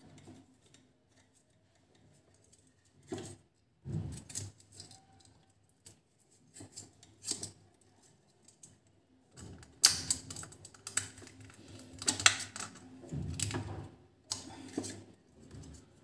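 Plastic bulb holder and electrical fittings handled while a wire is fitted into the holder's terminal: scattered clicks and knocks of plastic, a few at first, then a busier run in the second half.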